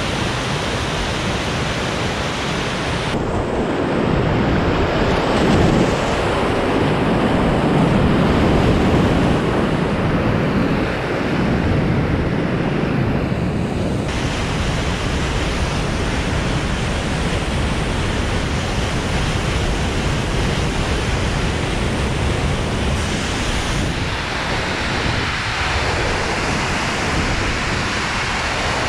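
Rushing whitewater of river rapids and a waterfall, a steady loud roar of water close to the microphone. The sound shifts abruptly a few times, fullest and deepest from about four to twelve seconds in.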